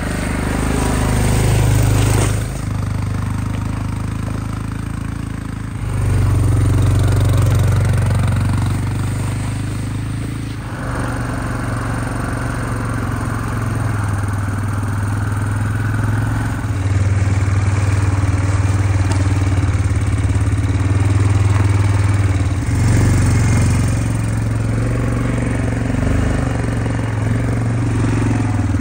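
ATV engine running steadily as the quad is ridden along a dirt trail, towing a loaded sled. The engine note shifts abruptly a few times.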